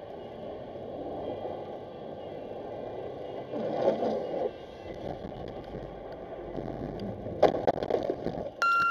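Car cabin road noise from driving on a slushy highway, with rougher bursts as spray hits the car; near the end a wave of slush splashes across the windshield. Just before the end a steady electronic beep sounds.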